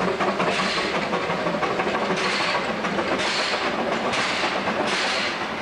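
Narrow-gauge steam locomotive working slowly through a yard, its exhaust chuffing about once a second and gradually quickening as it gets under way, over a steady background of hiss and running gear.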